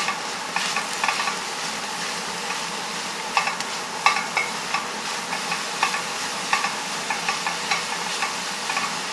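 Chopped onion, celery and grated carrot sizzling in a pan, fried without oil, with a utensil stirring and scraping against the pan in short irregular strokes.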